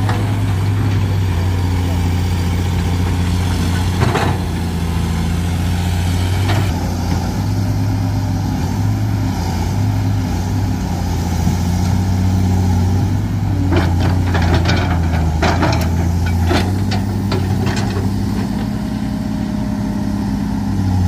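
Excavator diesel engine running steadily. Several sharp knocks come in a cluster a little past the middle.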